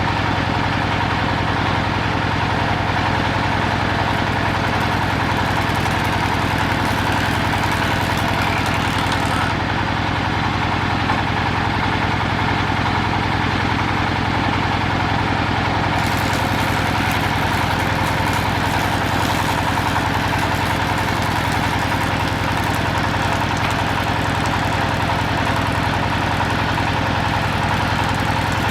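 Woodworking machinery running with a steady, even hum and no cutting strokes.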